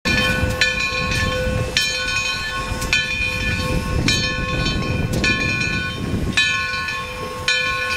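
Steam locomotive's bell ringing, struck about once a second, each strike ringing on into the next, over the low rumble of the locomotive rolling slowly along the track.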